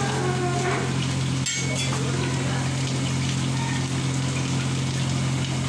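Lit gas stove burners running with a steady hiss and low hum while food fries in oil in a wok. A sharp click about a second and a half in.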